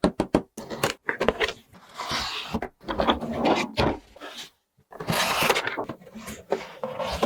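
Plastic toy pieces being handled: a quick run of clicks and knocks with stretches of clattering and rustling.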